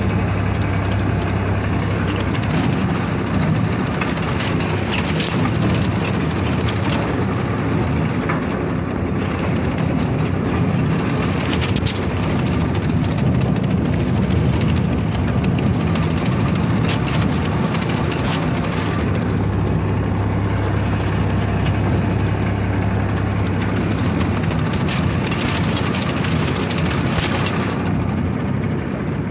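Powertrac 445 tractor's diesel engine running steadily under load while driving a mounted paddy reaper, heard close from the driver's seat, with scattered sharp clicks from the working machinery.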